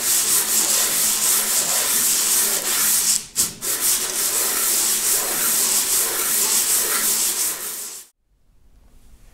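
Carburetor throttle body being rubbed across sandpaper on a flat table saw top, lapping its bowl gasket surface flat: a continuous scratchy sanding noise with a brief break a little over three seconds in, stopping abruptly about eight seconds in.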